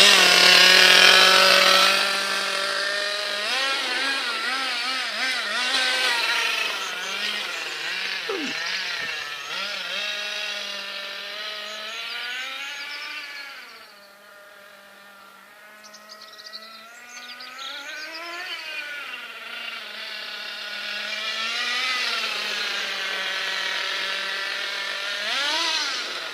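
Small two-stroke glow engine of a CEN Suzuki Vitara nitro RC car running, its pitch repeatedly rising and falling as it is revved up and down. It is loudest in the first couple of seconds, drops much quieter a little past the middle, and then comes back louder.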